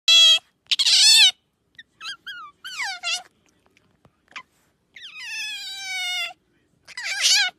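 Young otter pup calling: a string of about seven high-pitched, meow-like squeaks, several falling in pitch. The loudest come in the first second and a half, and one long, drawn-out call begins about five seconds in.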